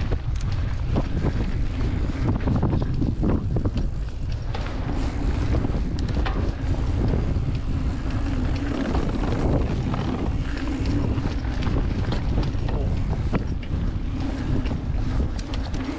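Wind buffeting the microphone of a camera riding on a mountain bike as it rolls down a dirt trail, a steady low rumble with scattered clicks and rattles from the bike over bumps.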